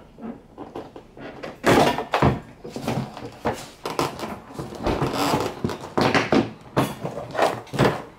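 Nissan 350Z's plastic interior door panel being pulled off the door: a string of irregular snaps and knocks as its retaining clips pop loose and the panel bumps the door, the loudest about two seconds in.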